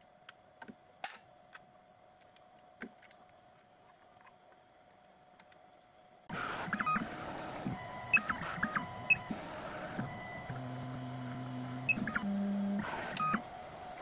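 Faint clicks as the key blank is reseated in the clamp. Then, about six seconds in, the 2M2 Tank II Pro CNC key cutting machine starts up with a series of short beeps and ticks. Its motors hum in steady tones that shift pitch as the cutter moves into position over the key for the second side.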